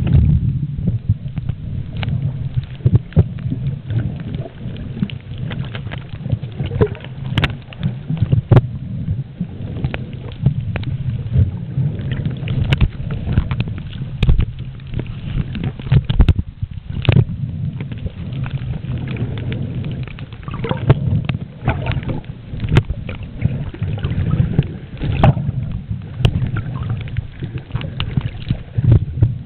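Muffled underwater sound from a camera held below the surface: a steady low churning of moving water with many irregular clicks and crackles.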